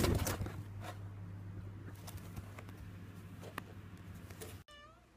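A loud knock or bump right at the start, then faint scratching and rustling with a few small clicks over a low hum.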